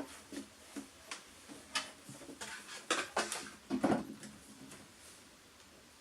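Objects being handled: irregular light clicks and knocks with some rustling, a few louder knocks near the middle, then it goes still about five seconds in.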